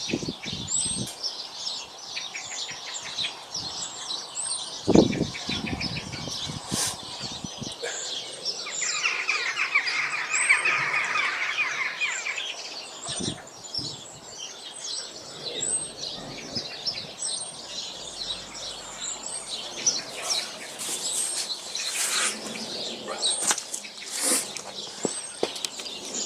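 Garden birds singing and chirping, several at once, with a repeated short high upward-flicking call and a dense trill from about nine to twelve seconds in. A few dull thumps come through, the loudest about five seconds in.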